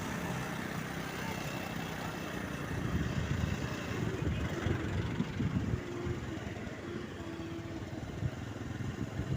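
A vehicle engine running with road traffic noise: a steady low rumble that swells a little in the middle. The bus's telolet horn is not sounding yet.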